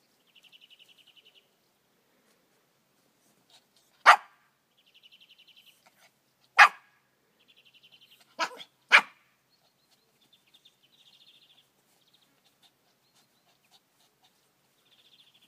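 Havanese dog barking four times, short sharp barks, the last two in quick succession.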